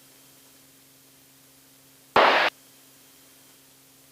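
A short, abrupt burst of radio static, about a third of a second long, some two seconds in, over a faint steady hum.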